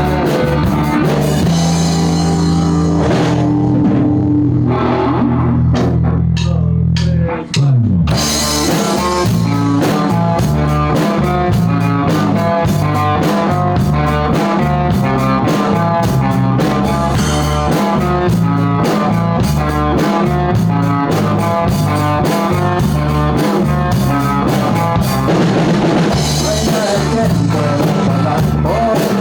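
Rock music with guitar and drum kit. A held low passage ends in a downward slide about seven seconds in, then the full band comes in with steady drumming.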